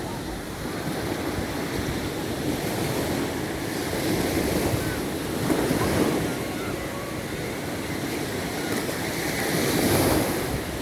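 Sea waves breaking and washing on the shore, with swells about four, six and ten seconds in, and wind on the microphone.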